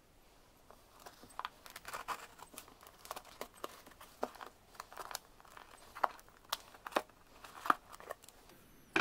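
Packaging crinkling and rustling as a parcel is unpacked by hand: a run of irregular short crackles and taps, the loudest one near the end.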